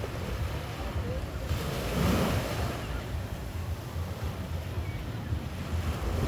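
Small waves breaking and washing up the sand, one wash swelling about two seconds in, over a steady low rumble of wind on the microphone.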